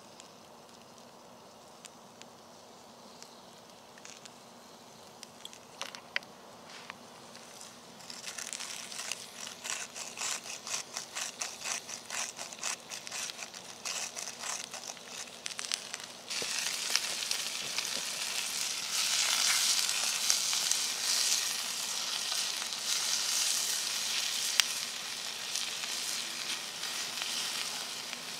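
Sliced red onion sizzling in oil in a cast iron skillet over a campfire: a steady frying hiss that starts suddenly about halfway through and is the loudest sound. Before it come faint crackles, then several seconds of rhythmic crinkling, about three or four a second, as a packet is handled.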